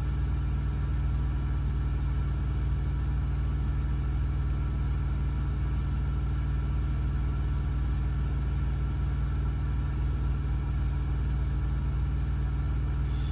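Semi truck's diesel engine idling, a steady low hum heard from inside the cab.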